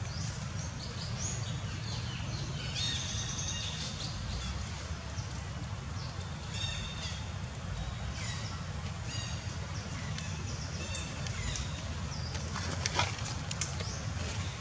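Outdoor ambience of short, high chirping animal calls in quick repeated runs over a steady low rumble, with a sharp click about 13 seconds in.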